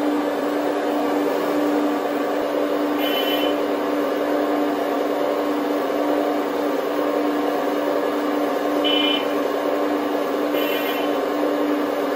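Hydraulic pumps of RC excavators running with a steady hum as the booms and buckets move, with three short high chirps.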